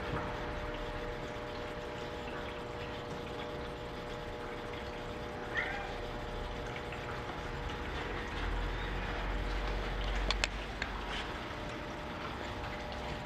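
Steady background hiss and hum with a single short, faint mew from a Maine Coon kitten about five and a half seconds in, and a few sharp clicks and a low rumble shortly before the end.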